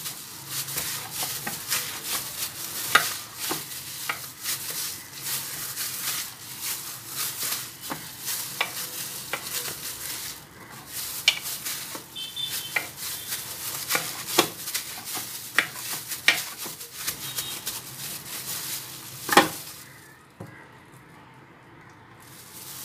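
Dough being kneaded by a hand in a plastic glove: a continuous crinkling and crackling of the glove, with the dough pressed and slapped against the bowl and a sharper knock about 19 seconds in. The sound drops away about two seconds before the end.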